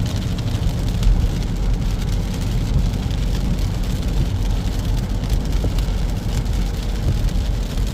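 Car driving in rain: a steady low engine and tyre rumble under an even hiss of rain and wet road.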